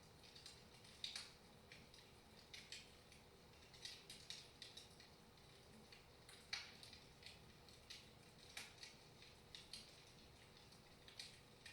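Wood fire crackling softly in a fireplace: faint pops and snaps at irregular intervals.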